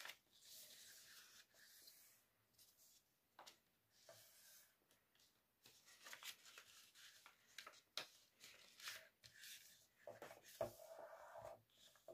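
Faint rustling and scraping of a sheet of paper being folded and creased by hand, in short bursts with a few sharp crisp clicks.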